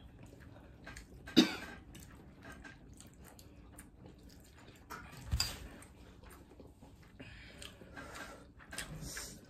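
Quiet sounds of eating spicy noodles: forks against bowls and chewing, with scattered small clicks. A sharp knock comes about a second and a half in, and a softer knock with a low thump near the middle.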